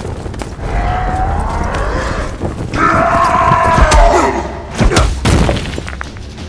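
Fight sound effects: a long, wavering high-pitched sound in two parts, then two heavy impact thuds about five seconds in, over a low rumble.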